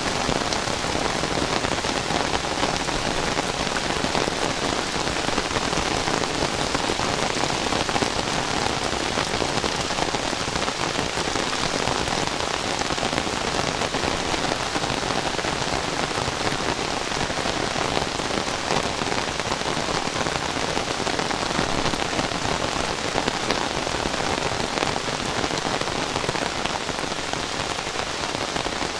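Heavy rain falling steadily: a dense, even wash of raindrops.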